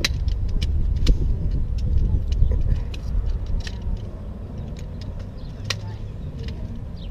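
Jointed pole frame of a Cascade Mountain Tech ultralight camp chair clicking and clacking as its sections are unfolded and snapped together, many sharp taps over a low rumble that is louder in the first few seconds.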